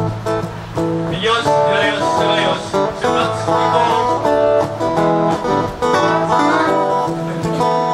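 Acoustic guitar music: a steady run of quickly picked notes.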